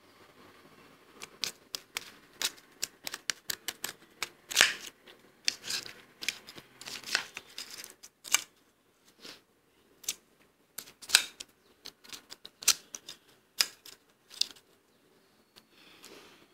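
Soft freezer frost being crunched as it is scooped with a metal spoon from a bowl and eaten: a quick, irregular run of crisp crunches and crackles that thins out near the end.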